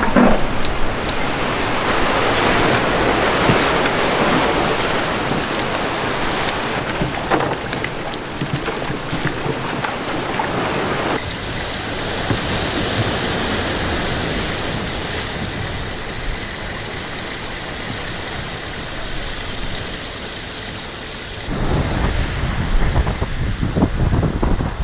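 Rain falling steadily on the pier and the sea, a continuous hiss. Near the end it gives way to wind buffeting the microphone over the sound of surf.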